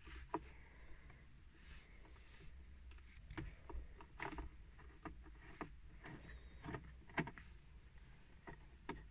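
Faint, irregular clicks and short scrapes of a screwdriver undoing the crosshead screws that hold a Nissan Micra K11's instrument binnacle.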